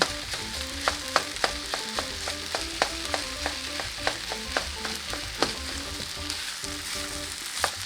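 Fried rice sizzling in a hot pan while a spatula stirs and breaks up the egg, clacking and scraping against the pan at irregular intervals.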